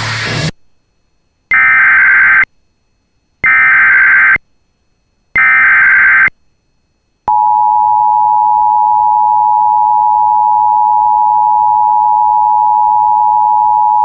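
Emergency Alert System header: three one-second bursts of SAME digital data tones, spaced about two seconds apart, that mark the start of a new warning. They are followed by the steady two-tone EAS attention signal, a pair of tones just below 1 kHz, starting about seven seconds in.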